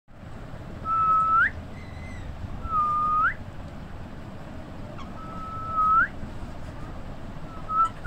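Four clear whistled notes. Each is held on one level pitch for about half a second and ends in a quick upward sweep; the third is the longest and the last is short, near the end.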